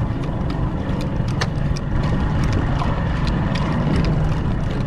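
Fishing boat's engine running steadily, a low rumble under a haze of noise, with scattered sharp ticks throughout.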